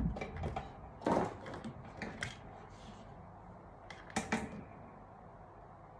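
Handling clatter on a work table: a few sharp clicks and knocks as cable wires and a screwdriver are picked up and moved, about a second in, about two seconds in, and a quick pair about four seconds in.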